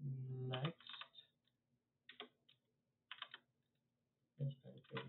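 Computer keyboard typing in short, scattered runs of keystrokes, with a brief low hum at the start and again near the end.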